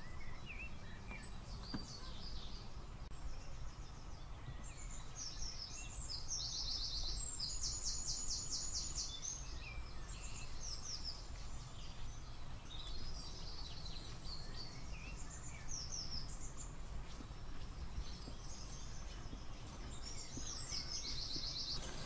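Several songbirds singing, with high chirps and quick trills of rapidly repeated notes, the longest trill about seven to nine seconds in, over a steady low rumble.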